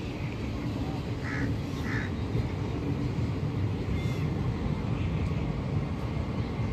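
Train running through the station with a steady low rumble. Two short high calls stand out over it about a second in.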